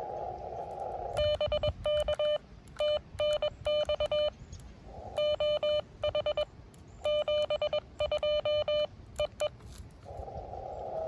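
Morse code from an amateur radio transceiver: a buzzy beep keyed on and off in dots and dashes, the rig's sidetone as CW is sent. The receiver's band hiss drops out while sending and comes back near the end.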